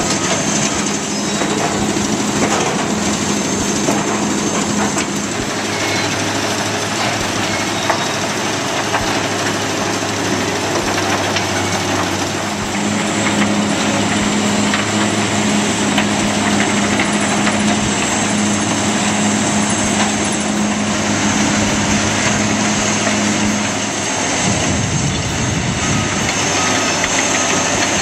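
Mobile waste shredder, screen and conveyor picking line running together on diesel power: a steady engine drone under constant rattling and clattering of wood and demolition debris. One engine note drops away near the end.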